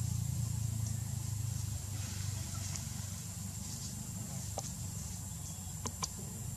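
A low, steady engine rumble, easing slightly about two seconds in, with a few sharp clicks near the end.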